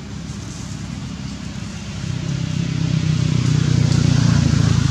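A motor engine running out of sight, growing louder about two seconds in.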